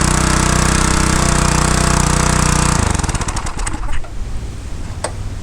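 Briggs & Stratton 500 series pressure washer engine running steadily, then stopping about three seconds in and coasting down with slowing firing pulses. A sharp click follows near the end.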